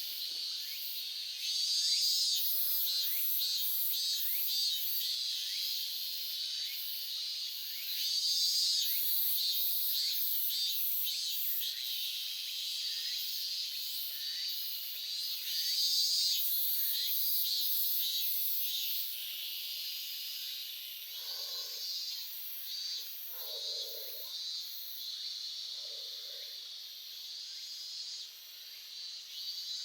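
A babbling stream with insects chirping in steady rhythmic pulses over the rush of the water; a few short, lower calls come in about two-thirds of the way through.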